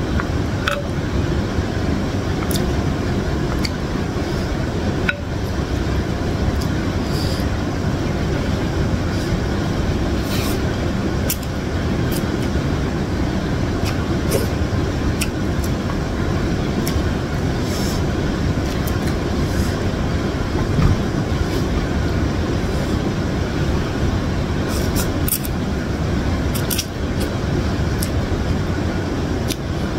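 Slurping and chewing of instant noodles in broth, with scattered short wet mouth clicks and smacks, over a steady low rumble of background noise.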